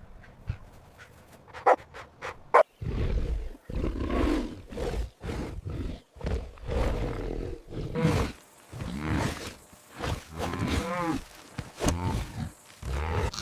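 A big cat roaring and growling: a series of loud, deep calls about a second each, starting about three seconds in, after a few short sharp clicks.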